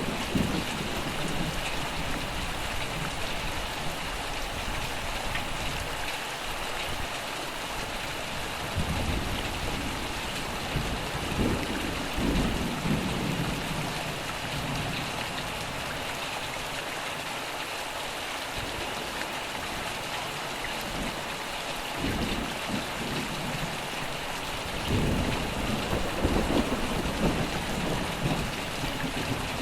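Steady rain falling, with several low rumbles of thunder rolling in and fading.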